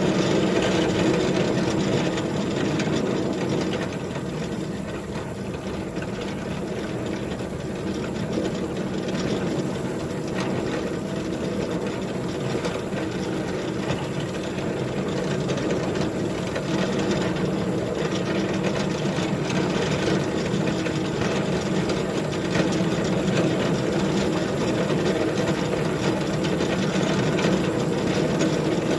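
Engine of a small 7½-inch gauge ridable locomotive running steadily under load as it pushes a snowplow through snow.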